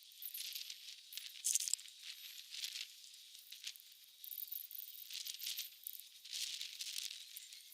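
Small branches being cut with a hand saw and handled, giving about ten short, scratchy, irregular strokes.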